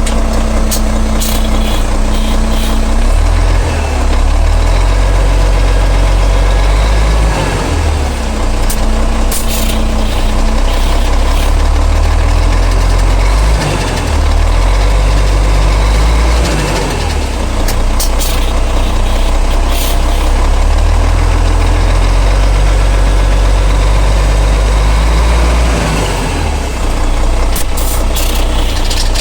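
A vehicle's engine and drivetrain running, a deep, steady running note that shifts in pitch a few times, presented as an abnormal sound from the transmission.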